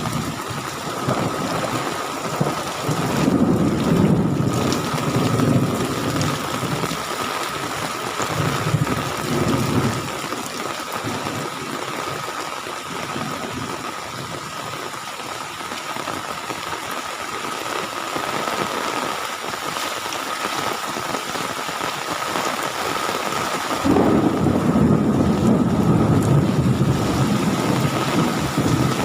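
Heavy rain pouring down steadily. Low rumbling swells and fades several times, then starts up again abruptly and louder near the end.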